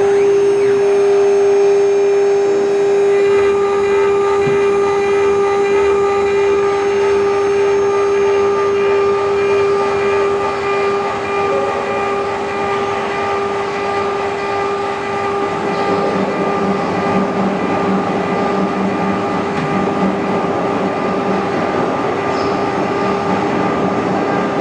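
A 6090 CNC router's spindle runs with a steady high whine while the cutter engraves and cuts copper, a hiss of cutting noise underneath. About 16 seconds in the cutting turns rougher and noisier.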